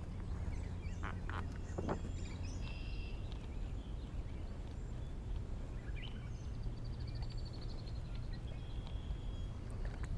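Wild birds chirping and calling, with a rapid trill about seven seconds in, over a steady low rumble of outdoor background noise.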